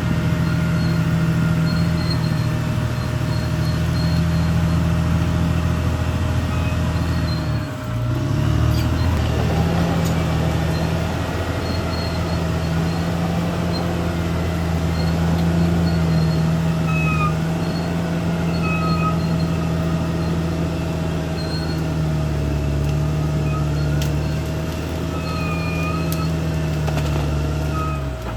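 Caterpillar D6R XL bulldozer's diesel engine running steadily at working revs, with a steady whine above it. The engine sound dips briefly about eight seconds in and picks back up, and faint short squeaks come and go in the second half.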